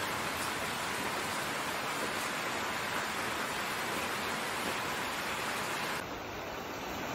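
Steady rain, an even hiss. About six seconds in it cuts suddenly to a softer, duller hiss.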